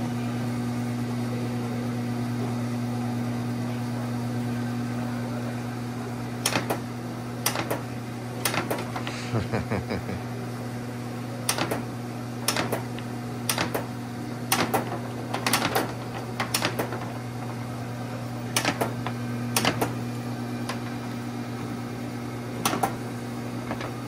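An egg washer and sizing grader runs with a steady electric hum. From about six seconds in, sharp knocks come at irregular intervals as wooden test eggs are kicked off the sizing rail and drop onto the plastic sorting table.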